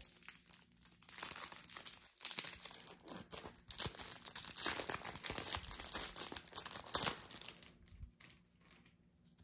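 Topps Match Attax trading-card pack wrapper being torn open and crinkled by hand: a run of crackling rustles that dies away after about seven and a half seconds.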